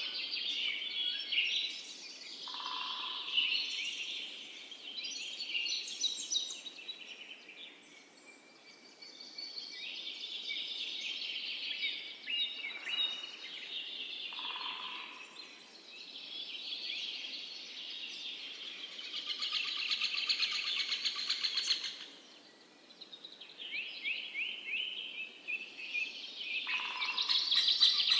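Songbirds singing and chirping in overlapping phrases with short pauses between them, including a rapid trill about two-thirds of the way through and a few brief lower notes.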